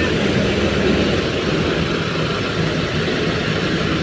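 Diesel engine of a large coach bus running steadily at low revs, a loud, even low drone.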